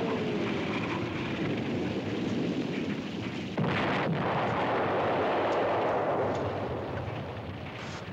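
Artillery shells exploding. A heavy rumbling blast carries on, a second shell bursts about three and a half seconds in, and the rumble fades near the end.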